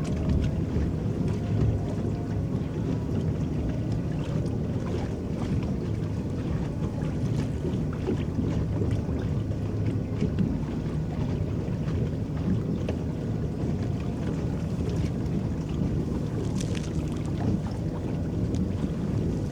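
Small electric boat under way on a lake: a steady low rumble of churning water with light splashes and lapping along the hull.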